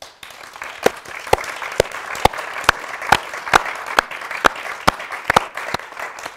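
Applause: a dense patter of hand clapping, with loud, close claps standing out about twice a second. It thins out near the end.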